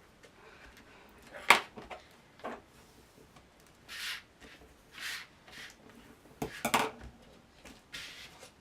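Cardstock and paper being handled and pressed down on a craft table: a few sharp taps and clicks, the loudest about one and a half seconds in, and several short papery swishes.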